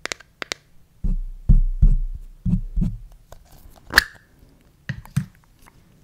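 Fingernails tapping on a small plastic slime tub close to the microphone, then dull low thumps as the tub is handled, and a sharp click with a short ring about four seconds in as the lid comes off.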